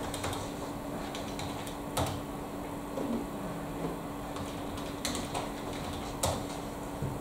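Keystrokes on a computer keyboard: scattered clicks, a few sharper ones about two, five and six seconds in, over a steady low hum.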